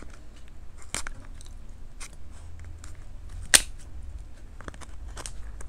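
Kitchen scissors cutting through the hard shell of a cooked king crab leg at the joint: several separate sharp snips and cracks, the loudest a little past halfway.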